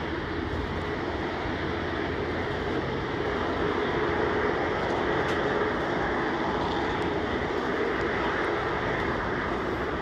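Boeing 747-8 freighter's four GEnx jet engines running as it taxis, a steady roar that grows a little louder about four seconds in.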